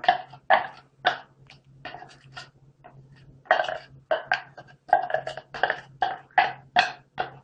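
A spoon scraping and knocking minced onion out of a plastic mini chopper bowl into a stainless steel pot: an irregular string of short knocks and scrapes.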